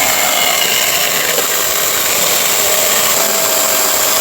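Chainsaw running steadily while cutting up wooden pallet boards for firewood.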